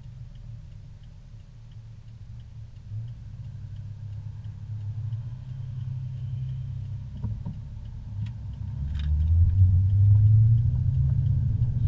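Car engine idling, heard from inside the cabin, with a turn signal ticking about twice a second while waiting to turn. About eight seconds in the engine revs up and grows louder as the car pulls away.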